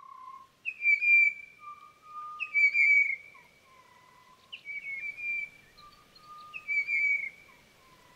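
A bird singing clear whistled notes, a lower note followed by a longer higher one, the phrase repeating about every two seconds.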